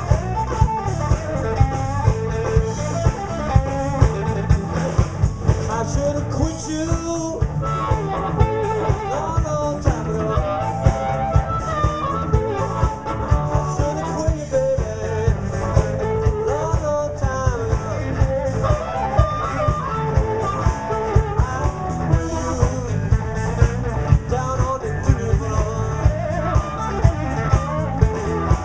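Live blues band playing over the PA: electric guitar, bass and a drum kit on a steady beat, with amplified harmonica carrying the melody.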